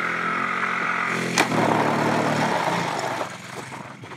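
Small motorcycle's engine running with a steady note. About a second and a half in there is a sharp click, and then the engine note drops lower and fades somewhat.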